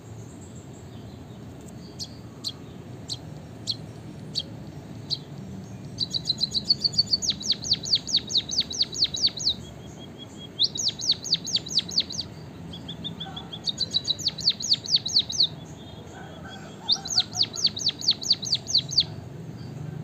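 White-headed munia singing: a few single high clicks, then four runs of quick, high, falling notes at about eight to ten a second, each run one to three seconds long, with soft short notes between runs.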